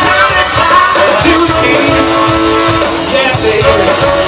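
Live band music, loud, with drums, bass and electric guitar and long held notes through the middle.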